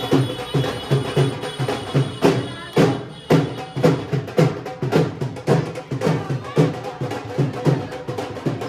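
Dhol drumming: a fast, steady beat of deep drum strokes with sharp accents.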